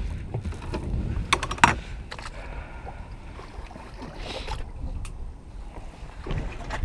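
Sharp clicks and knocks on a fibreglass fishing boat, a quick cluster of them about a second and a half in and a few more later, over a steady low rumble of wind and water.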